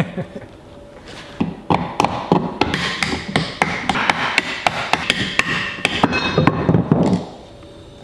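Wood chisel being struck and driven through a 2x4 in rapid, irregular knocks with scraping between them, clearing out the waste between saw kerfs to flatten a half lap joint. The knocking starts about a second and a half in and stops about seven seconds in.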